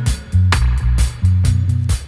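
Instrumental passage of a reggae recording: a deep, moving bass line under sharp rhythmic strokes about twice a second, with no singing.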